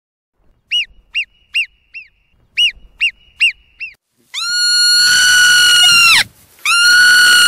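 Marmot calling: eight short, sharp whistles in two quick groups of four, then, from about halfway, two long, louder, steady whistles of about two seconds each.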